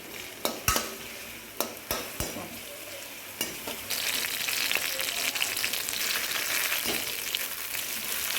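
Onion, chillies and curry leaves frying in hot oil in a pan, with a spoon clicking against the pan several times as they are stirred. The sizzling grows louder about halfway through.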